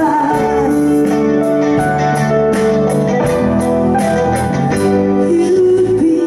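Live band music: guitar over sustained chords with a steady beat.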